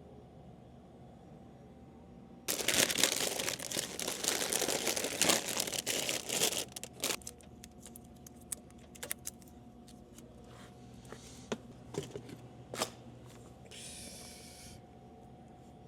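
Plastic snack packaging crinkling and tearing for about four seconds, then scattered clicks and light knocks as items are handled, with a brief rustle near the end.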